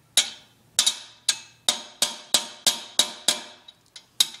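A hammer striking a steel bearing race in a Ford 8.8 differential housing, about three sharp ringing metal-on-metal taps a second, driving the new race down into its bore.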